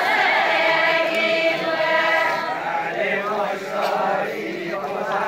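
A group of voices singing a folk dance song together in unison, a drawn-out, chant-like melody. The singing is strongest for the first couple of seconds and grows fainter after that.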